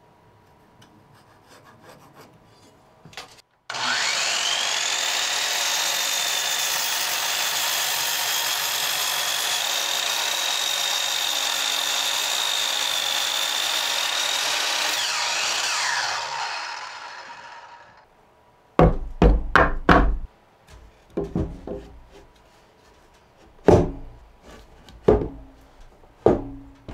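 A miter saw spins up to a steady high whine and cuts through a thick wooden workbench leg for about twelve seconds, then winds down with falling pitch. After it come several heavy wooden knocks and thumps as the legs are handled and fitted into the benchtop.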